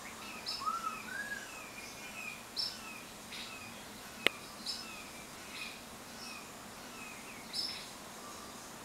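Recorded birdsong from a cat-entertainment bird DVD: repeated short chirps and whistled notes from small birds over a faint hiss, with one sharp click a little over four seconds in.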